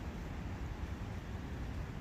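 Steady forest ambience of wind and a flowing brook: an even rushing noise, heaviest in the low rumble.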